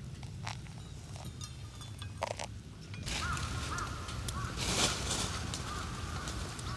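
A few light clinks, then from about three seconds in a bird calling repeatedly in short arched calls over a steady low rumble.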